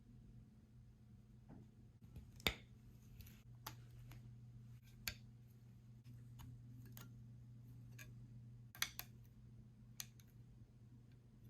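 Scattered light clicks and taps from handling a die-cast model airplane and its packaging, the sharpest about two and a half seconds in and a quick pair near the end, over a faint steady low hum.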